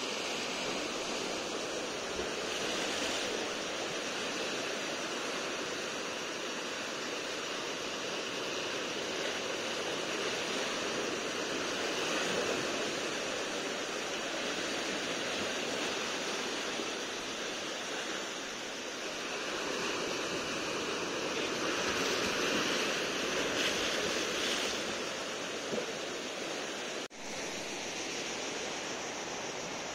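Sea surf washing in over and around beach boulders: a steady rushing of breaking waves that swells louder now and then, with a momentary break near the end.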